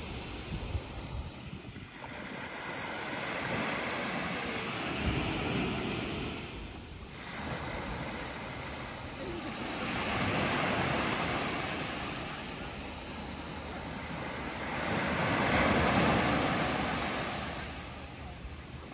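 Small waves breaking and washing up a sandy beach, the surf swelling and fading about every five seconds, with some wind rumble on the microphone.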